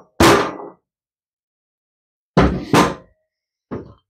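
Mallet blows on a socket set over a loose valve seat, driving the seat back into a Briggs & Stratton overhead-valve cylinder head. One sharp strike just after the start, two more in quick succession about two and a half seconds in, then a fainter knock near the end.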